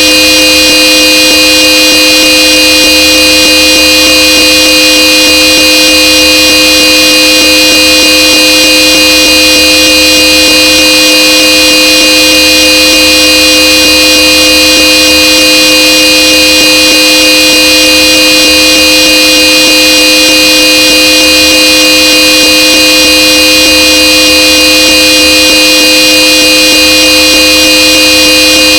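Old Supertone electric car horn sounding one long, steady, unbroken blast.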